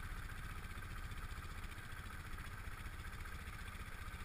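Quad ATV engine idling steadily while the machine stands still.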